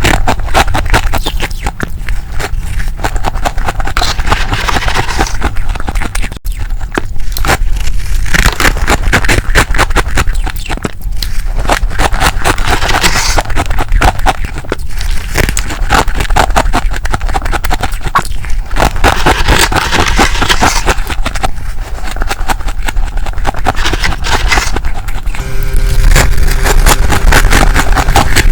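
Freezer frost being crunched and scraped up close, a dense crackling that comes in uneven bursts. A low, steady hum comes in near the end.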